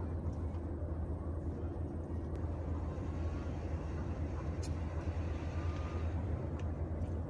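A steady low drone, like a motor running, unchanging throughout.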